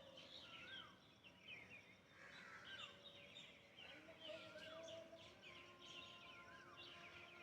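Faint birdsong: many short chirps and twitters from small birds, with one call repeating a rising-then-falling whistle about every two seconds.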